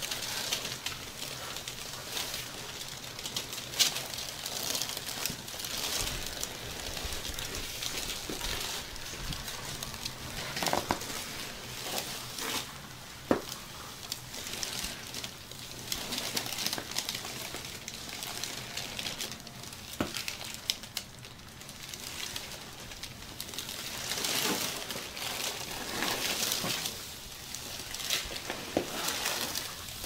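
Hands-on body work: skin, clothing and the treatment table's covering rub, rustle and crinkle in repeated soft swishes. A few sharp clicks stand out, about 4, 13 and 20 seconds in.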